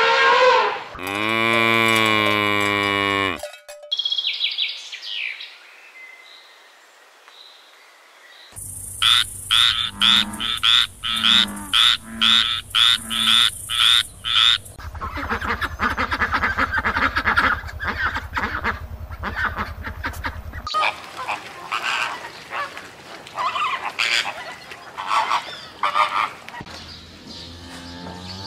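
Frogs croaking: a run of regular croaks about two a second, then a dense unbroken croaking chorus, then scattered calls. It is preceded by an elephant's trumpeting call in the first few seconds, falling in pitch.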